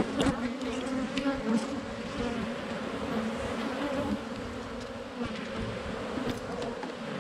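Honeybees buzzing around an opened hive: a steady hum whose pitch wavers slightly, with a few light clicks.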